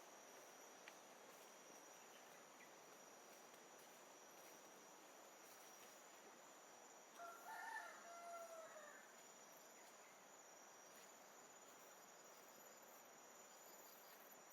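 A rooster crows once, faintly, about seven seconds in, ending on a falling note. Under it runs a steady hiss with a thin, high insect whine.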